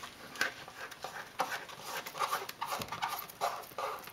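Worn Plastidip rubber coating being rubbed and peeled by fingers off a dirtbike's plastic front fender: an irregular run of short scratching and tearing sounds, several a second.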